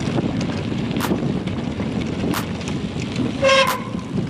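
Mountain bike rolling down a sandy dirt track: steady tyre and wind noise with a light tick about every second and a half. About three and a half seconds in, a short single horn-like toot.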